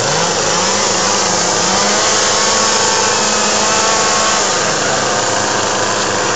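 Several two-stroke chainsaws running at once, their engine notes wavering up and down.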